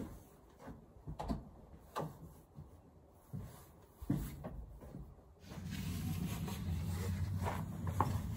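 Scattered wooden knocks and clunks from a door being opened and lumber being handled, with a steady low hum setting in about halfway through.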